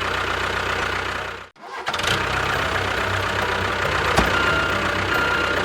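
An engine running steadily. It cuts out abruptly for a moment about a second and a half in, then runs on, with a sharp click near the end.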